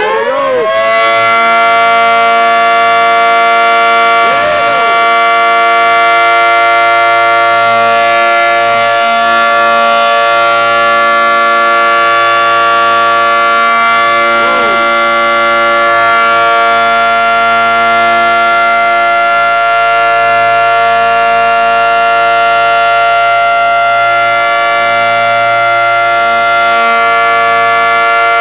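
Outdoor tornado warning siren sounding the tornado alert at close range: it winds up in pitch during the first second, then holds one steady, deafening wail.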